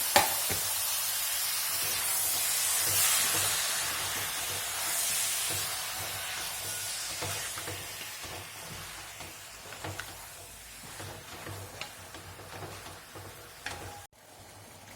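Raw chicken pieces going into hot onion-tomato masala in a bronze uruli, starting with a knock and then sizzling loudly, the hiss dying down steadily as the pan cools under the meat. A few light clicks of stirring come through near the end.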